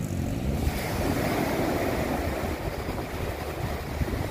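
Small waves breaking and washing up the sand at the shoreline, the wash swelling up about a second in, with wind buffeting the microphone. A motorboat engine hums in the background at the start and again near the end.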